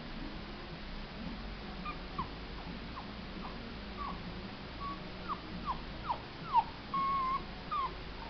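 Mini whoodle puppy giving short, high, falling whimpers and squeaks, sparse at first and coming faster in the second half, with one longer held whine near the end.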